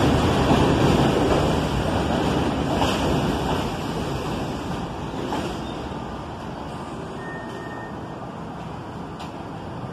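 R68A subway train rolling past on elevated track, a steady rumble of wheels on rail that fades gradually as the train moves on.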